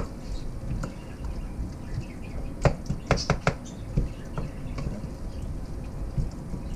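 Wooden spoon stirring vegetables in a stainless steel pot, knocking against the pot's sides and bottom, with a quick run of four knocks about three seconds in.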